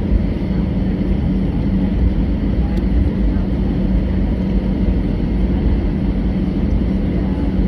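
Cabin noise inside an Airbus A319 taxiing on the ground: a steady low rumble with a constant hum from the engines and airframe.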